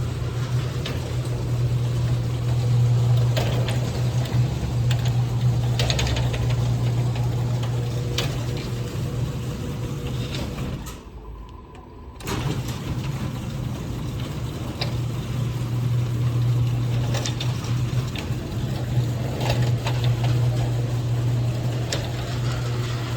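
Electric garage door opener running the door along its track, a steady low motor hum with rollers clicking and rattling. It stops for about a second near the middle, then runs again in the other direction.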